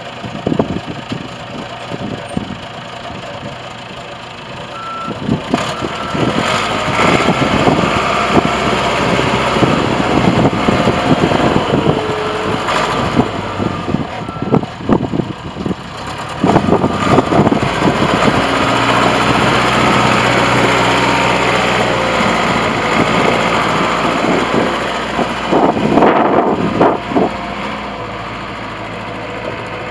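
Caterpillar 416 backhoe loader's diesel engine running, picking up revs about five seconds in and again past the middle as the machine works, with knocks and clanks from the machine. A backup alarm beeps briefly.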